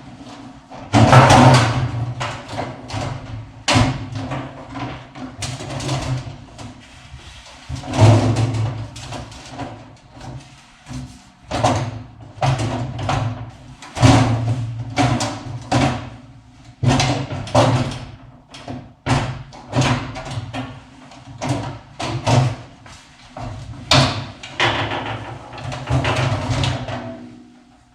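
Irregular knocks, taps and clatters, a few a second and of uneven strength, from hands and tools working on a microwave oven's casing while opening it to reach a blown fuse.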